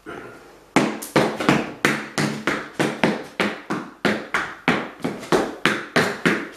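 Irish dance hard shoes striking a wooden floor in a steady rhythm of sharp clicks, about three a second, starting about three-quarters of a second in.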